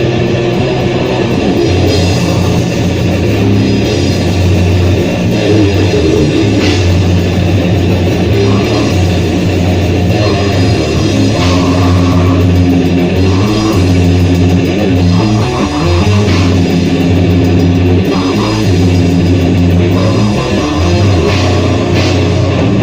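Loud, heavy distorted rock played by a band rehearsing: electric guitar and bass holding low riffs that shift every second or two, with drums.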